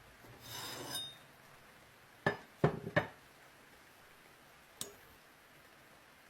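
Three quick sharp metallic knocks, like metal tools or parts set down or struck on a hard surface, about two to three seconds in. A short scraping sound comes just before, and a single lighter click follows near the end.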